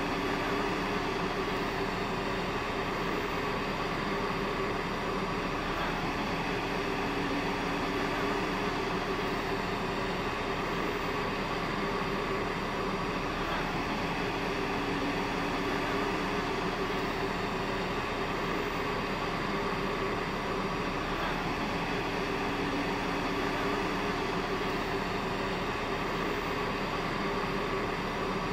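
Steady droning hum of running machinery, with a few constant tones over an even rushing noise and no change in level.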